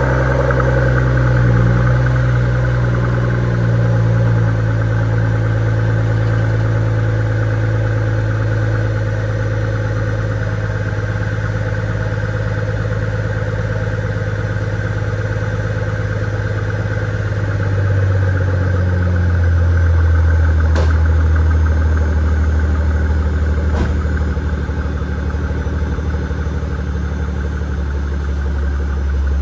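Mercedes SL65 AMG's twin-turbo V12 idling steadily through the exhaust at its raised cold-start idle. The engine is fully cold after sitting overnight. About two-thirds of the way through, the idle settles to a lower, steady note.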